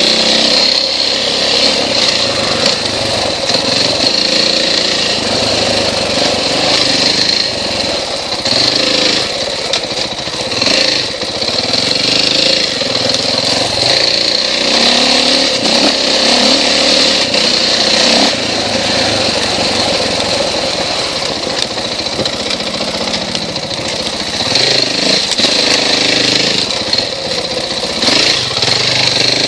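KTM XC-W off-road motorcycle engine running under load, its pitch rising and falling again and again as the rider works the throttle along a tight trail, heard from an onboard camera with wind and trail rattle over the microphone.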